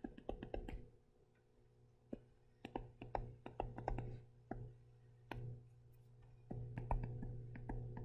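A stylus tapping and clicking on a tablet's screen in irregular quick clusters as handwriting is written, with short pauses between words, over a steady low electrical hum.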